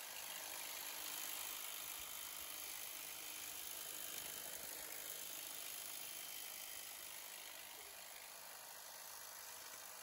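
Electric hedge trimmer running steadily as its reciprocating blades clip across the top of a boxwood hedge, a quiet even whir.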